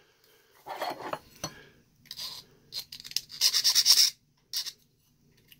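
A flat hand file rasping along the cut edges of a small model truck cab, in short scraping strokes; the longest and loudest run of quick strokes comes about three and a half seconds in, with softer scraping and handling before it.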